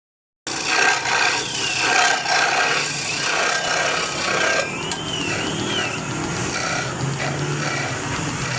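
Wood being worked by hand with a rasp or saw: rough rasping strokes, about two a second in the first half, then a steadier rubbing scrape.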